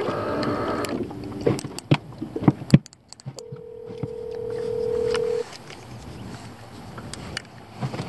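A phone call ringing out on a smartphone's speaker: one steady two-second ringback tone comes in about three and a half seconds in, part of a two-seconds-on, four-seconds-off ring cycle. Scattered clicks and knocks of handling sound around it.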